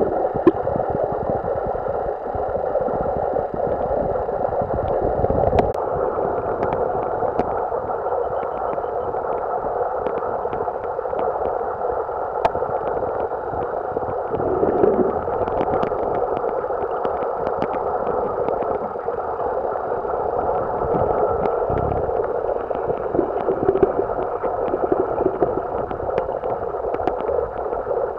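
Steady, muffled underwater noise recorded by a camera below the surface of a lake, with scattered faint clicks and ticks throughout.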